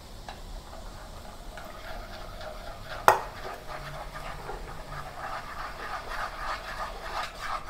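Boiling sauce bubbling in a nonstick frying pan while cornstarch slurry is stirred in with a spatula to thicken it, with soft scraping. A single sharp knock about three seconds in.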